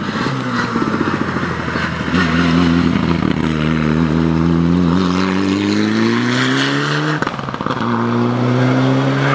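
Touring race car engine under hard acceleration, growing louder over the first two seconds, then its note climbing steadily until a brief break for an upshift about seven seconds in, after which it pulls up in pitch again.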